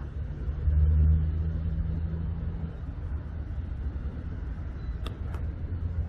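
Low engine rumble of a motor vehicle going by, loudest about a second in and then easing off. Two brief sharp high sounds come near the end.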